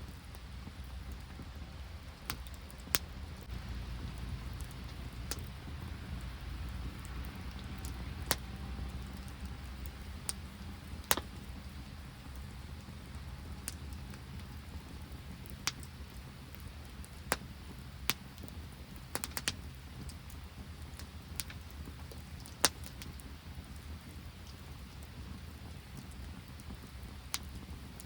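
Rain and sleet dripping: single sharp drops ticking irregularly, about one every second or two, over a steady low rumble.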